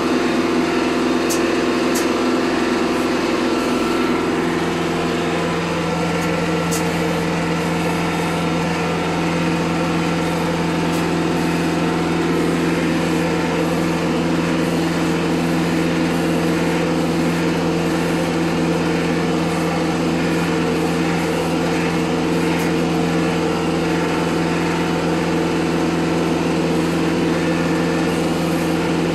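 TYM compact tractor's diesel engine running steadily while its tow-behind bush hog rotary cutter mows grass.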